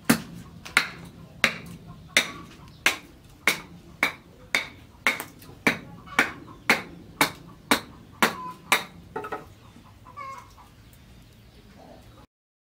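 Sharp clicks about every two-thirds of a second, each with a brief ring, stopping about nine seconds in; then a chicken clucks a few times.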